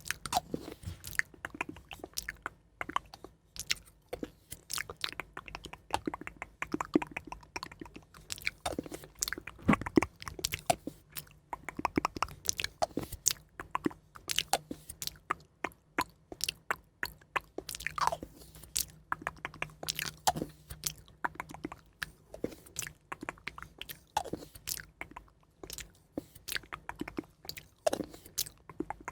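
Close-microphone ASMR mouth sounds: irregular crisp, crunchy clicks like chewing and biting, several a second, acting out eating up negative energy.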